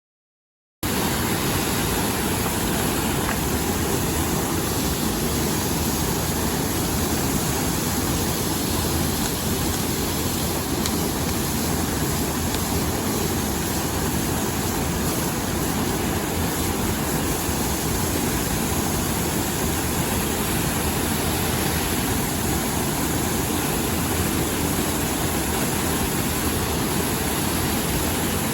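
Steady rush of a mountain stream, cutting in abruptly about a second in.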